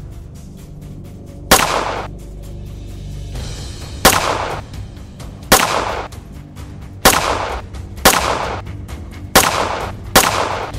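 Seven gunshots, about one to two and a half seconds apart, each followed by a short fading echo, over background music.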